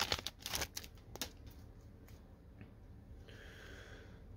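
Foil wrapper of an Upper Deck hockey card pack crinkling as it is torn open, a cluster of short sharp crackles in the first second or so, then only faint handling of the cards.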